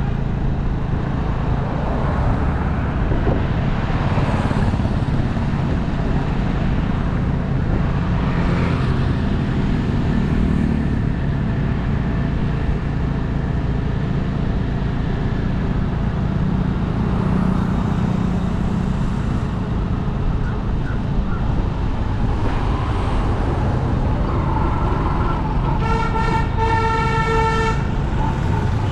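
City road traffic heard from a moving car: a steady engine and road rumble, with a vehicle horn honking in several short toots near the end.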